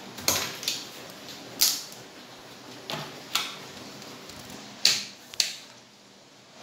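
Handling noise at a repair bench: about seven scattered sharp clicks and light knocks, the loudest about one and a half and five seconds in.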